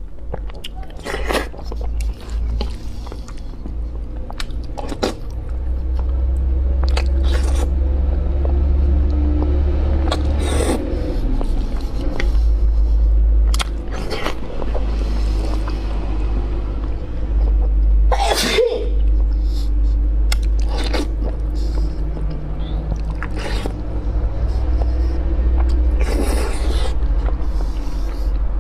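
Close-miked eating of spicy instant noodles and soft steamed buns: slurps, mouth smacks and chewing, with many short clicks. One sharp, loud burst comes about eighteen seconds in.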